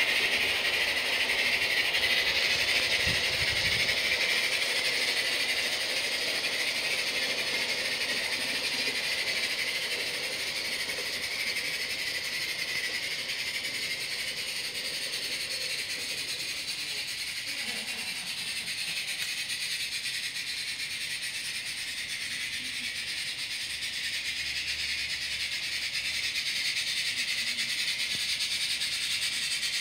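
Live-steam G-gauge model of a Rio Grande K-27 locomotive running with its train, giving a steady hiss of steam. The hiss is loudest about the first four seconds, fades as the train moves away and swells a little again near the end.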